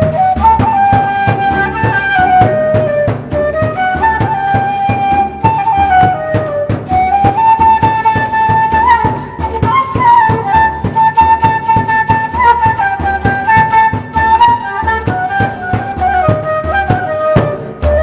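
Instrumental background music: a high melody moving stepwise over a steady, quick percussion beat.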